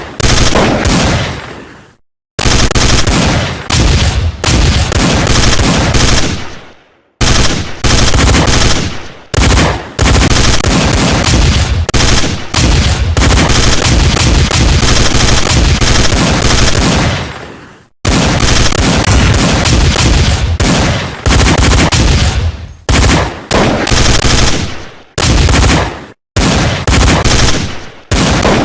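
Gunfire sound effects from a trading indicator's alerts: long bursts of rapid machine-gun fire, each dying away in an echoing tail, with a few short silent breaks between bursts.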